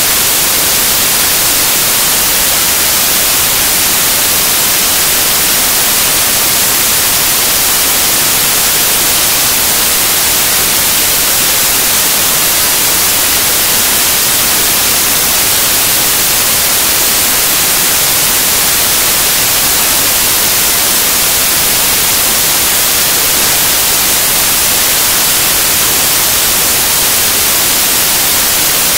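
Loud, steady static hiss, strongest in the treble, unchanging throughout; no shots, voices or other sounds stand out through it.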